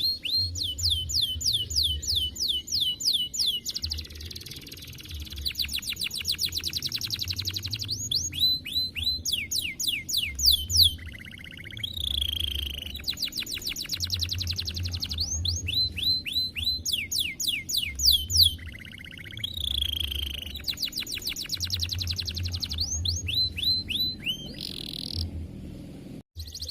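Domestic canary singing a long, unbroken song of fast trills: rapid runs of repeated downward-sweeping notes, switching to a new trill every second or two.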